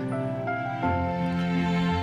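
Soft, sad background score of sustained chords, with a new chord and a low bass note coming in a little under a second in.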